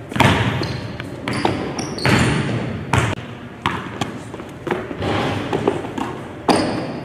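Basketball bouncing on a hardwood gym floor: about eight separate thuds at an uneven pace, each echoing in the hall. A few short high squeaks come between the second and fourth thuds.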